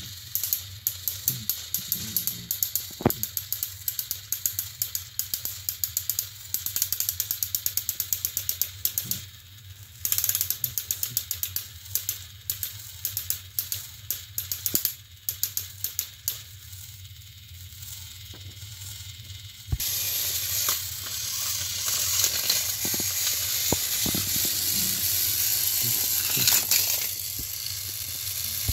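Battery-powered Thomas & Friends toy engines straining against each other on plastic track, their motors and gearing clicking rapidly as the wheels slip. About two-thirds of the way through the sound turns into a louder, steady whir: an engine has tipped onto its side and its motor is spinning the wheels freely.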